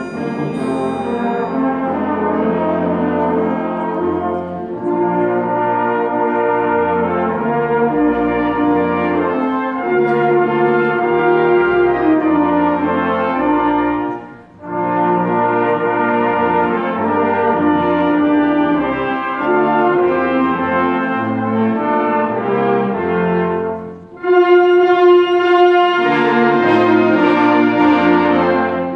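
A concert wind band playing a Christmas carol, brass to the fore in held chords. The music breaks off briefly about halfway and again near the end, then comes back louder for the last few seconds.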